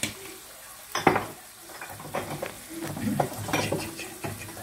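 A wooden spoon stirring diced meat in a frying pan, with sharp knocks and scrapes of the spoon against the pan, the loudest about a second in. The meat is sizzling now that its juices have cooked off and it is browning.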